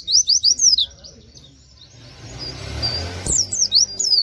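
Pleci (white-eye) songbird singing a rapid string of sharp, high, falling 'wit wit' notes. It breaks off, gives a single short note, and then starts another quick burst about three seconds in. A single knock comes just as the second burst starts.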